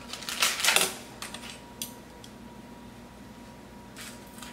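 Metal serving utensils (tongs and a spoon) clicking and scraping against a baking sheet of chicken wings, a quick run of clicks about half a second in and a few lighter ones after, then more clicks near the end.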